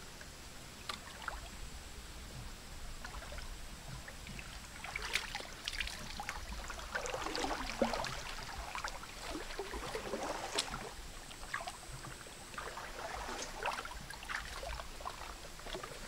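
Water splashing and sloshing as someone wades through a shallow muddy creek, in irregular splashes that are busiest in the middle.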